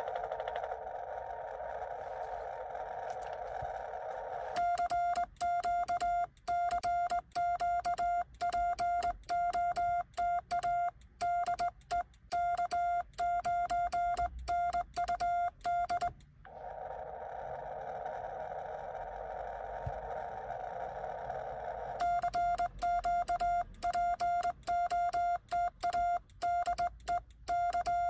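Xiegu X6100 transceiver's CW sidetone, one steady mid-pitched beep keyed on and off into Morse code by a home-built cootie (sideswiper) key, in two runs of sending: from about four and a half seconds in to about 16 s, and again from about 22 s on. Before and between the runs, the receiver's band hiss through its narrow CW filter.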